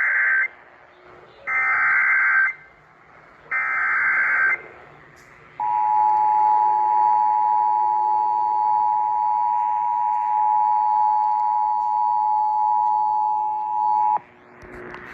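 Emergency Alert System tones over AM radio: the tail of one burst, then two more one-second bursts of SAME digital header data, which encode the severe thunderstorm warning. About a second later the steady two-tone EAS attention signal sounds for about eight and a half seconds and cuts off abruptly.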